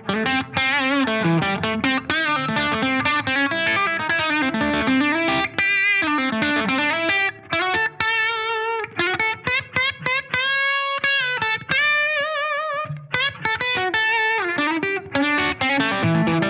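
Gibson electric guitar played on its bridge pickup through an amp set to a light crunch, with everything up full: single-note licks with string bends and vibrato, including a long held note with wide vibrato about ten to twelve seconds in.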